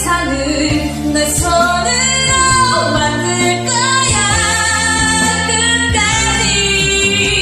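A woman singing a dramatic musical-theatre song with long held notes over an instrumental backing track.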